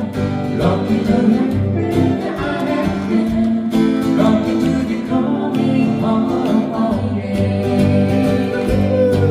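Acoustic guitar playing a song with a voice singing over it.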